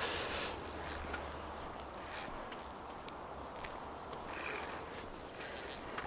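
Fishing reel whirring and clicking in four short bursts of a half second or so, as line is wound or pulled off the reel while a hooked pike is played.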